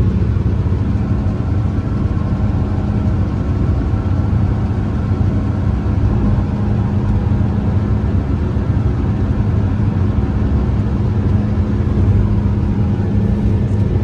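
New Holland CR9060 combine running steadily, heard from inside the cab: a constant engine and machinery drone with a low hum while its grain tank is being unloaded.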